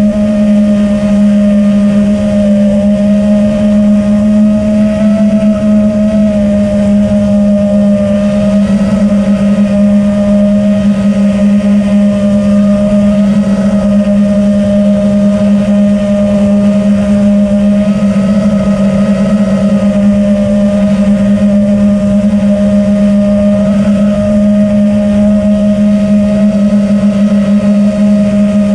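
Armattan Badger 5.5-inch FPV quadcopter's Xing 2306 2450kv brushless motors and propellers running at steady cruise throttle, heard from the onboard GoPro Session 5: a loud low hum with higher whining overtones whose pitch wavers only slightly.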